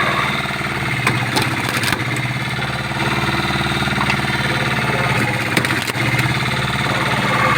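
Engine-driven wood-cutting machine running steadily, with a few sharp clicks and knocks over its hum.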